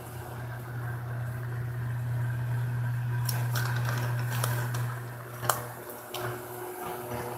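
Electric fan running with a steady low hum, with a few light clicks from a drink carton's plastic cap being handled.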